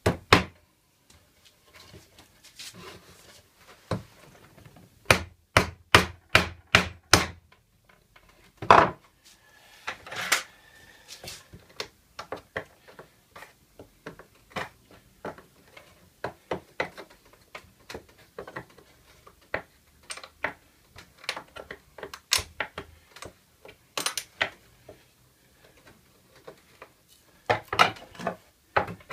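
Hammer striking a pallet-wood frame: a quick run of about seven blows about five seconds in, a single hard blow just before nine seconds, then scattered lighter knocks and taps of hand tools on the wood.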